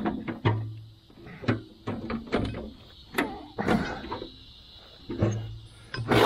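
Junk being pushed and handled in a golf cart's metal rear cargo bed: scattered knocks, scrapes and rustling.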